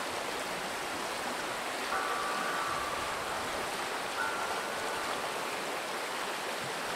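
Steady rushing noise like running water, with faint held musical notes coming in about two seconds in and again after four seconds as background music starts up.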